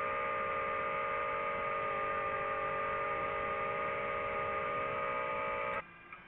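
Quadcopter drone's motors and propellers whining at a steady pitch in flight, a hum of several steady tones. It cuts off abruptly near the end, leaving only a faint hum.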